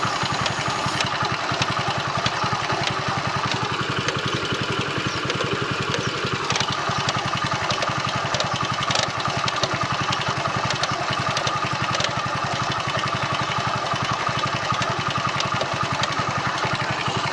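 Motorcycle engine idling steadily, with a few sharper clicks over the running engine.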